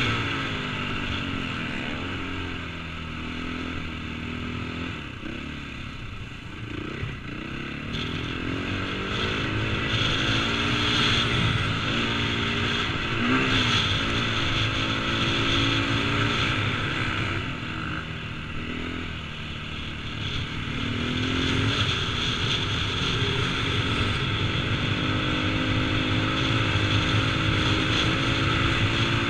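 KTM 450cc single-cylinder four-stroke motocross engine under varying throttle, revving up and easing off as it pulls through soft sand, heard from a helmet-mounted camera. It eases off at the start, builds again, dips briefly about two-thirds of the way in, then picks up and holds.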